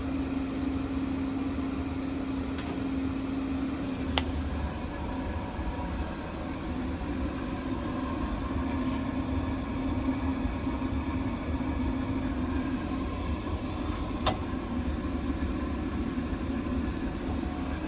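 Keston commercial gas boiler running: a steady hum of its fan and burner, with a held tone over a low drone and a few sharp clicks.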